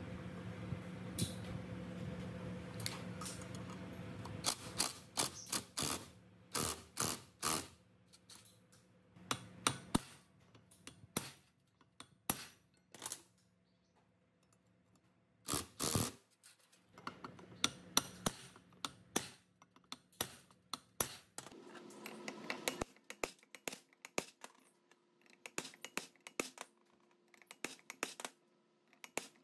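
A steady motor-like hum for the first few seconds, then a long, irregular run of sharp light clicks and taps, with a fainter steady hum coming in about two-thirds of the way through.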